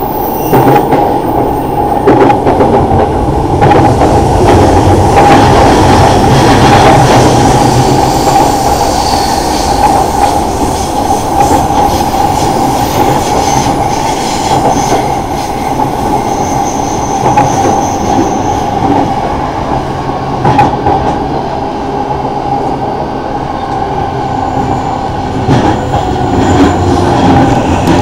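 Running noise of an electric commuter train heard from inside the carriage: a steady rumble and hum of wheels on rails, with occasional clacks as the wheels cross rail joints.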